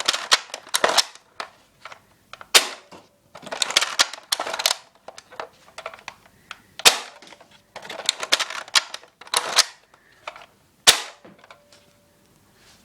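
Nerf Long-Strike spring-powered blaster being test-fired over and over. Each shot starts with a rattling clatter of clicks as the bolt is pulled back and pushed home to prime it, then comes a sharp snap as it fires. There are three shots, about four seconds apart.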